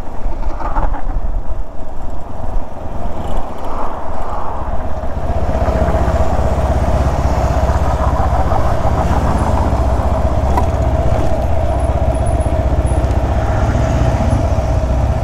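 Motorcycle engine running while riding, a loud steady drone that settles into an even pitch about five seconds in.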